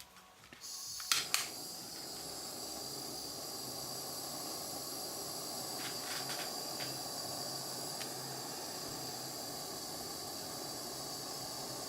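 Jeweller's gas soldering torch turned on and lit with a couple of sharp clicks about a second in, then its flame hissing steadily while it heats silver solder joints on a ring. A few light clicks come around six seconds in.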